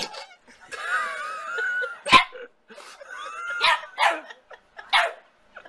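A dog whining with a wavering pitch, then giving four short, sharp barks over the next three seconds.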